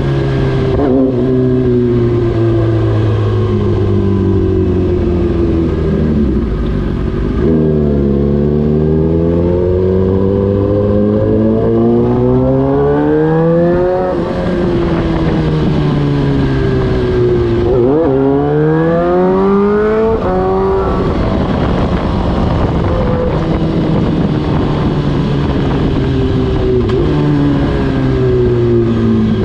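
Suzuki GSX-R1000 inline-four running through an Austin Racing exhaust while riding. Pitch holds fairly steady at first, then climbs in a series of rising pulls, each broken by a sudden drop as it shifts up a gear. Later the pitch sinks slowly as the throttle closes, and near the end it rises again under acceleration.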